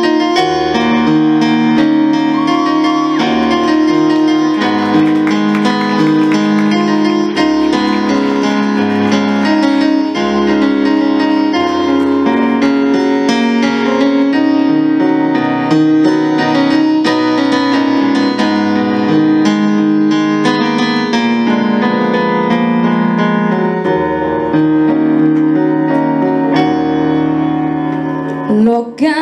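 Piano playing the instrumental interlude of a romantic ballad between sung verses: sustained chords under a melody line. There is a brief break about a second before the end.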